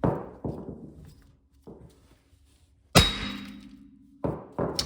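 Hammer blows on a steel hub removal tool bolted to a rusted rear wheel hub, driving the seized hub and bearing out. There are about six strikes, the loudest about three seconds in, and each rings briefly like struck metal.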